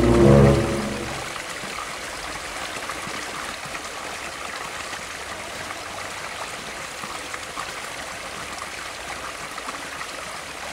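Creek water running steadily, with a short pitched sound, the loudest thing here, in the first second.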